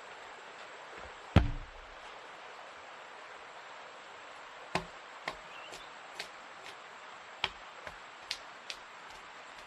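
Heavy wooden impacts from working raw logs: one heavy thud with a low boom about a second and a half in, then about seven lighter, sharper knocks at irregular spacing.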